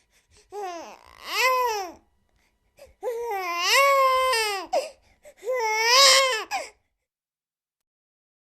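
An infant crying in four wails, each rising and then falling in pitch; the third is the longest, nearly two seconds. The crying stops about seven seconds in.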